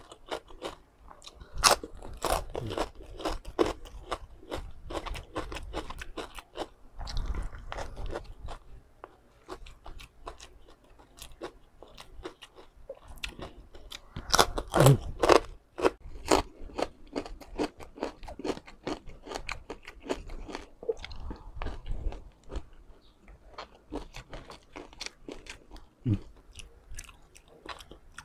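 A person biting and chewing crispy deep-fried pork skin, a dense run of sharp crackling crunches. The crunching is heaviest about one to four seconds in and again around fourteen to sixteen seconds in.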